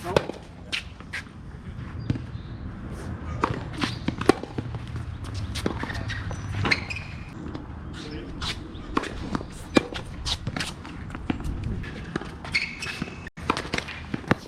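Tennis rally: sharp racket-on-ball hits every few seconds, with ball bounces and footsteps on the court in between. The sound drops out for an instant near the end.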